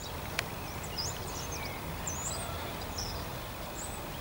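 Outdoor ambience: small birds chirping in short, high calls scattered over a steady low rumble, with one sharp click about half a second in.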